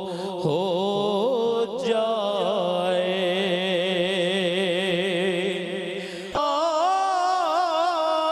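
A man singing an Urdu naat, drawing out long, wavering melismatic notes; a new phrase starts about six seconds in.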